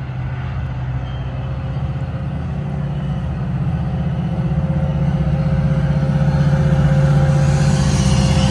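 Diesel locomotive engine running with a steady low, pulsing drone that grows gradually louder.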